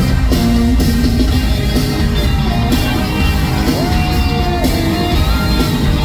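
Live pop concert music played loud through a PA, heavy in the bass, with long held vocal or keyboard notes.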